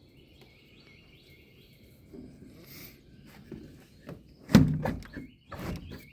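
Birds chirping outside in the first second or so, then two heavy thunks about a second apart near the end, the first the loudest.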